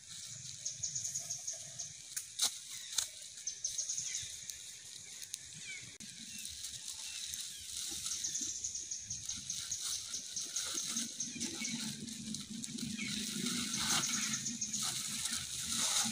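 Outdoor forest ambience: a high-pitched, rapidly pulsed trill comes and goes several times over a steady background, with a few sharp clicks early on and a low hum building in the second half.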